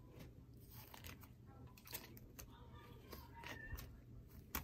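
Faint scratching and clicking of a plastic comb being drawn through a doll's wet synthetic hair in irregular strokes, with a sharper click near the end.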